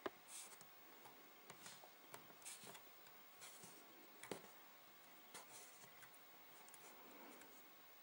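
Near silence with faint rustling and small ticks of fingers untwisting the thin insulated copper wire pairs of a CAT5 cable.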